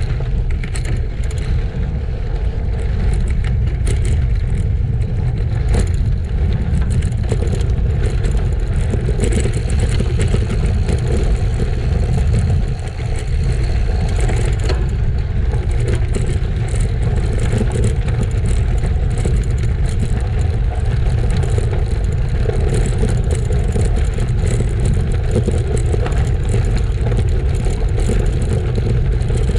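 Road bike ridden on a gravel trail: steady wind rumble on the microphone, with tyres rolling and rattling over gravel.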